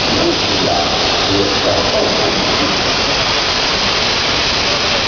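A machine tool running with a steady, loud rushing noise, with faint voices underneath.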